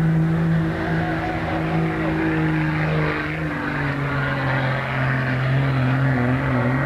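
Dodge Ram pickup's Cummins turbo-diesel running flat out while dragging a weight-transfer pulling sled. Its engine speed drops about halfway through as the sled's load builds and stays lower after that.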